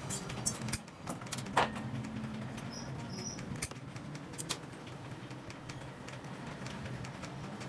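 Scattered light clicks and taps of small tools at a jeweler's bench, the loudest about one and a half seconds in, over a steady low hum.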